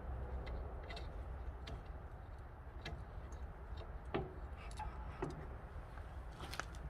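Scattered light clicks and taps, a second or so apart, over a low steady hum: a glass pane being handled and test-fitted against the steel wood-stove door.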